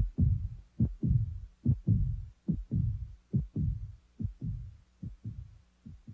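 Heartbeat sound effect: paired low thumps, a lub-dub a little under once a second. It fades out near the end.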